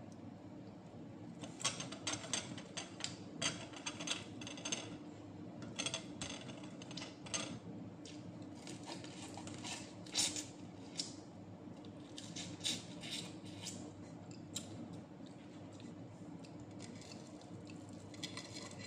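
Close-up clicking and crackling of smoked fish (tinapa) being picked apart by hand and eaten: dry skin and small bones snapping, with mouth sounds of eating. The clicks come in clusters of quick bursts over a steady low hum.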